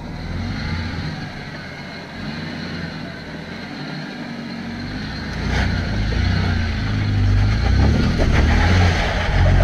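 A Toyota LandCruiser four-wheel drive's engine labouring at low speed as it crawls up a steep rocky hill climb, its low rumble growing louder about halfway through as it takes the steepest part.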